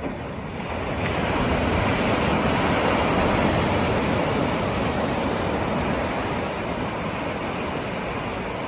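Sea waves breaking and rushing in: the surf swells about a second in, is loudest around three seconds, then eases into a steady wash.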